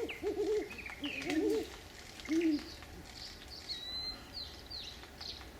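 Great horned owl hooting: a series of low, deep hoots in the first two and a half seconds. Small songbirds chirp faintly higher up throughout.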